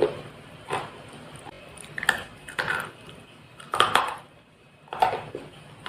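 Crisp, sharp crunches of slate pencil being bitten and chewed close to the microphone, about six at uneven intervals with softer chewing between.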